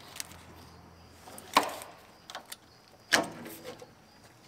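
Taillight wiring harness connectors on a 2006 GMC Sierra being unplugged by hand: two sharp plastic clicks, about a second and a half apart, with a few faint ticks of handling.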